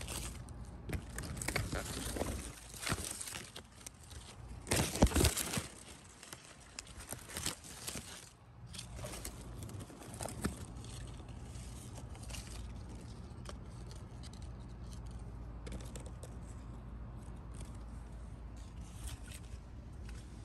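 Muscadine grapevine leaves rustling and scraping against the phone as it is pushed among the grape clusters, in irregular bursts with the loudest about five seconds in. After about ten seconds the rustling stops and only a steady low background noise remains.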